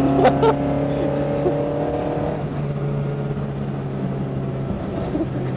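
Toyota AE86's engine heard from inside the cabin, running at a steady speed under light throttle, its pitch holding level without revving.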